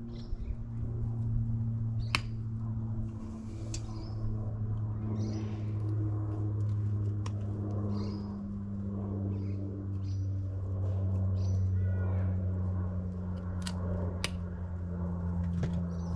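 Soil and roots being scratched and teased apart with a hand tool, with a few sharp clicks of the tool. A steady low mechanical hum runs underneath and is the loudest sound; its pitch shifts slightly now and then.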